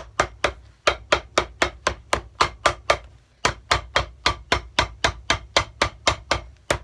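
Cobbler's hammer striking a freshly glued leather sole on a shoe, rapid even blows at about four a second with a short pause about three seconds in. This is the sole being hammered down and shaped to the arch.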